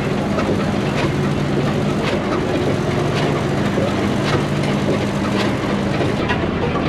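Large Duvant stationary engine running slowly: a steady low hum with a sharp beat about once a second.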